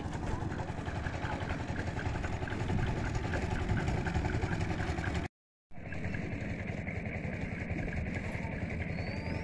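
Steady whirring of a drone's motors and propellers in flight, with the sound cutting out completely for about half a second near the middle.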